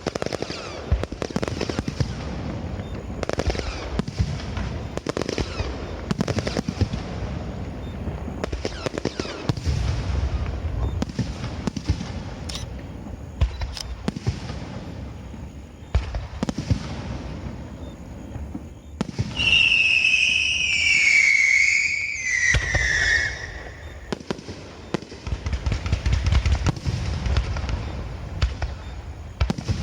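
Aerial fireworks going off in a dense run of booms and crackling bursts. About twenty seconds in, a loud whistle slides down in pitch over about four seconds.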